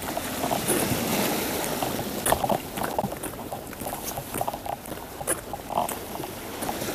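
Irregular clicks, taps and rustling from handling a freshly landed rockfish and its fishing rig, over a steady background hiss.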